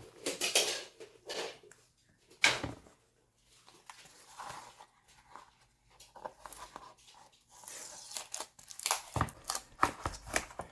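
A small kit's packaging being opened by hand: rustling, tearing and sharp clicks, with a denser run of rustling and clicks in the last few seconds.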